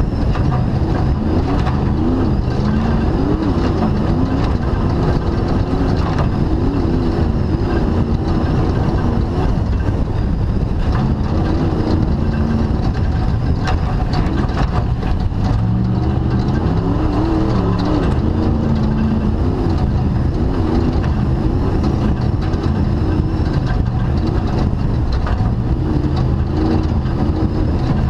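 Class 2000 off-road race car's engine running hard, its pitch rising and falling as the throttle works, heard from on board over constant rattles and knocks from the chassis on rough ground.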